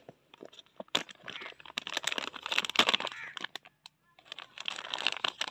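Thin plastic packaging bag crinkling and rustling in irregular bursts as it is cut open and handled, with a few sharp clicks. It falls quiet briefly about four seconds in.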